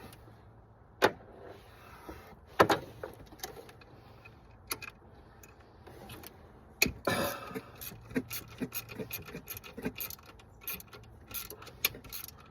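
Hand tools clicking, clinking and knocking against metal engine parts in irregular, scattered strokes, with a few sharper clanks about a second, two and a half seconds and seven seconds in.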